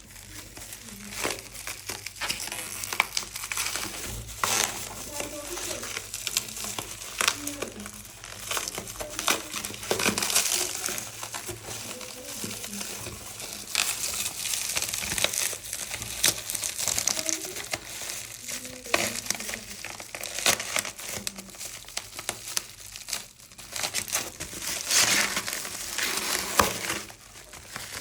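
Packaging crinkling and rustling as a keyboard is unboxed, with irregular crackles and small handling clicks throughout.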